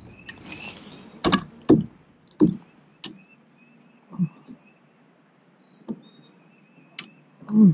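Irregular knocks and thumps against a boat's deck and hull as a netted smallmouth bass and the landing net are brought aboard, with a short hiss near the start.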